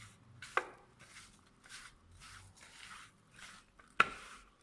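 Small pieces of boneless chicken being mixed and rubbed into a spice-powder coating in a bowl: faint, soft strokes repeating about twice a second, with a sharp click about half a second in and a louder one near the end.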